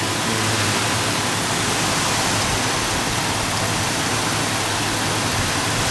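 Nissan E51 Elgrand engine idling, heard close over the open engine bay as a steady rushing noise with a low hum.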